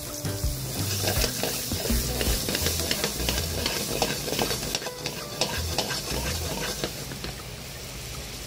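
A block of butter sizzling and crackling as it melts into hot olive oil with garlic cloves and a dried chili in a frying pan over high flame, with many sharp pops over a steady hiss as the butter foams.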